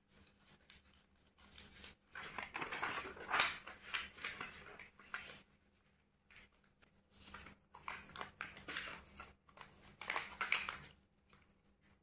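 A sheet of invitation-card paper rustling and creasing as it is folded back and forth into a fan, in two spells of handling, the first starting about two seconds in and the second about seven seconds in.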